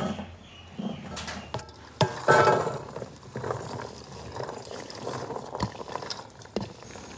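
Cut corn kernels tipped from a stainless-steel basin into a perforated metal steamer tray: a rush of kernels pattering onto the metal about two seconds in, then hands scraping and pushing the rest off the basin, with the basin knocking against the steamer rim several times.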